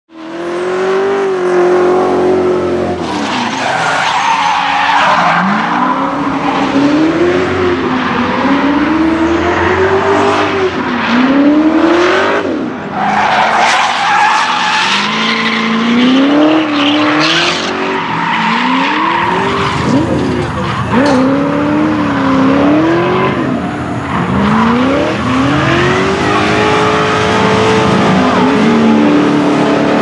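Chevy LS1 V8 swapped into a BMW E36 drift car, tuned to about 600 hp, revving over and over, its pitch climbing and dropping every second or two, while the rear tyres squeal and skid through a drift.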